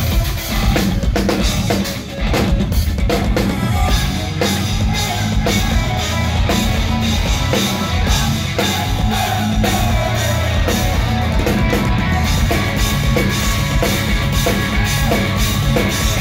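Live instrumental progressive metal from a drum kit and electric guitar, with busy kick-drum and snare hits driving under the guitar.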